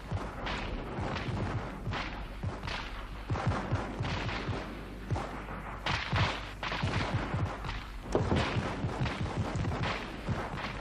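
Gunfire from a street battle: many shots at irregular, overlapping intervals, with a few louder reports standing out.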